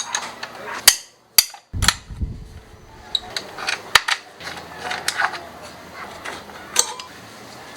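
Hand tools working on a scooter: scattered sharp metallic clicks and knocks, irregularly spaced.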